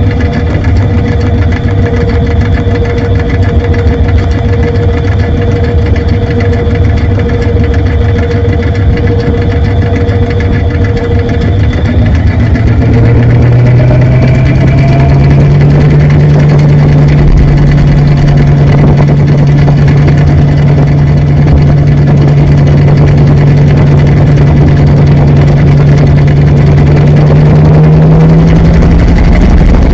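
Washing machine running, heard from inside the drum: a loud, steady motor hum. About halfway through its pitch rises and then holds high, climbing a little more near the end, as the drum speeds up.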